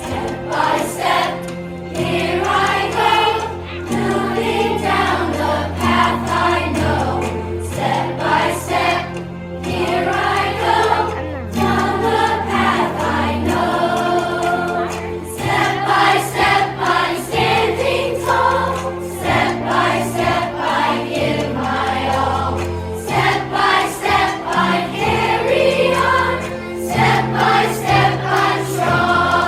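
A choir singing over music, with sustained low bass notes under many voices.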